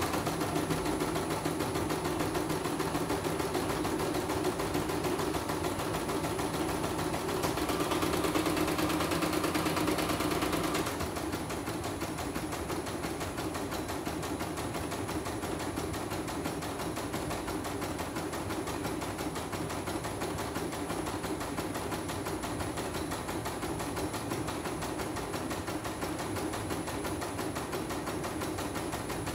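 Portable computerized embroidery machine stitching a design, its needle running in a fast, even rattle of stitches. The sound turns a little quieter and duller about eleven seconds in.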